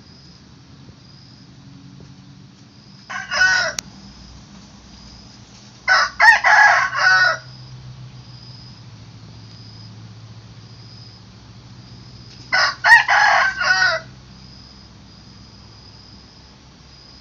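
A rooster crowing three times, about three, six and thirteen seconds in; the first crow is short and the last two longer.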